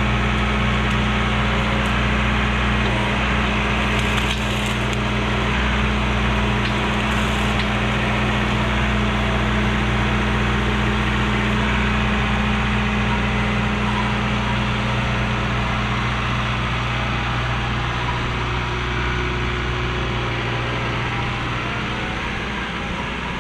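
John Deere 4066R tractor's four-cylinder diesel engine running steadily while its loader grapple grabs and lifts a brush pile. Short crackles of branches snapping come about four seconds in and again about seven seconds in. The engine sound drops off near the end as the tractor drives away.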